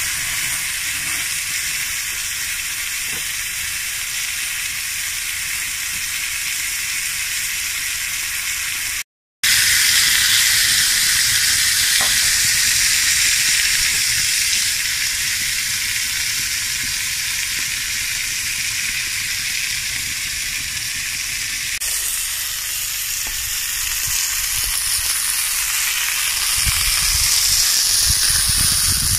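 Burger patty with melted cheese, onions and mushrooms sizzling in a black steel pan over a wood fire: a steady frying hiss. It breaks off for a moment about nine seconds in, then goes on a little louder.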